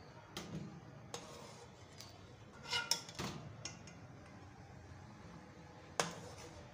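Metal spoon clinking against metal cooking pots as boiled carrot pieces are lifted out of their cooking water and set into another pan. There are a few scattered clinks with a brief metallic ring, a cluster of them near the middle and one sharp clink about six seconds in.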